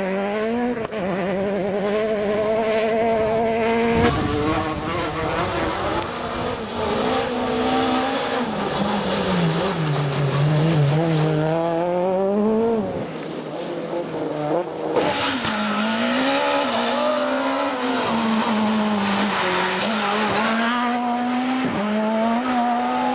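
Rally car engine on a gravel stage, revving up and down with repeated rises and falls in pitch through gear changes. Its pitch sinks lowest about ten seconds in, and a hiss joins it from about fifteen seconds.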